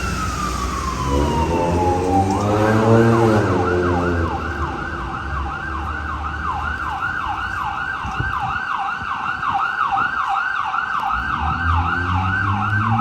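Emergency vehicle siren on a city street: a long wail falling in pitch winds down over the first two seconds, then the siren switches to a fast yelp, sweeping up and down about two and a half times a second. A deep drone that rises and falls sits under it from about one to four seconds in, the loudest part.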